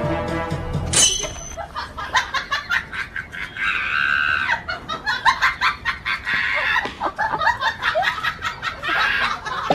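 Backing music cuts off about a second in. Then chickens cluck and squawk over and over in short agitated calls.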